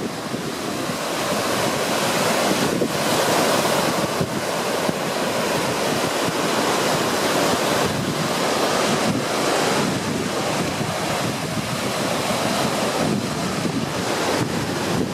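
Small lake waves breaking and washing onto a pebbly shore in a continuous, surging rush, with gusting wind buffeting the microphone.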